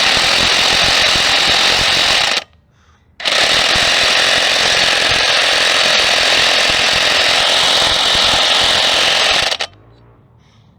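Impact wrench hammering on an engine bolt in two long runs: one of about two and a half seconds, a brief pause, then one of about six seconds.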